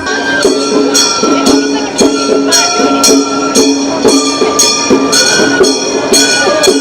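Gion-bayashi festival music: small brass hand gongs (kane) struck in an even beat about twice a second, under a held, shifting melody on a transverse bamboo flute.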